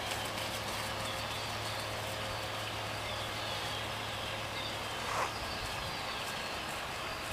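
Quiet outdoor background: a steady low hum with faint bird chirps, and one brief sweeping sound about five seconds in.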